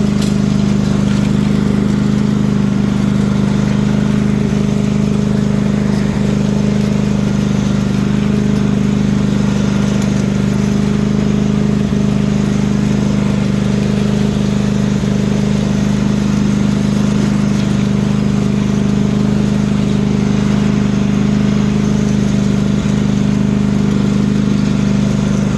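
Riding lawn mower engine running steadily at an even pitch through a truck exhaust pipe strapped onto its exhaust.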